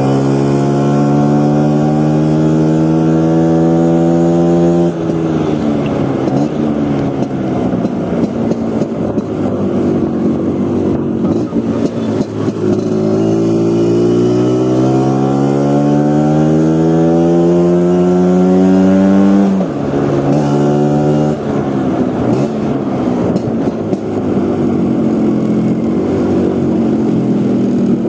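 1977 Vespa Sprint scooter's single-cylinder two-stroke engine under way, its pitch climbing as it accelerates and dropping sharply about five seconds in and again near twenty seconds in at gear changes.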